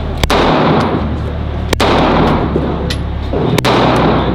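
Three pistol shots about a second and a half to two seconds apart, each with a long echoing tail, and fainter cracks in between.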